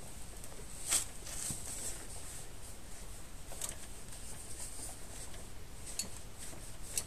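A few scattered metallic clicks and knocks of a wrench on the motorcycle's clutch hub nut as it is tightened by hand, with no torque wrench.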